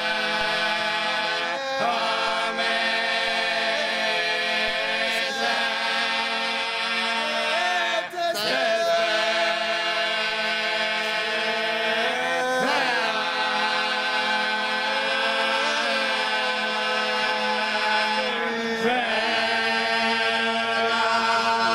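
Slow chant-like choral music: voices hold long notes over a steady low drone, moving to a new pitch every few seconds.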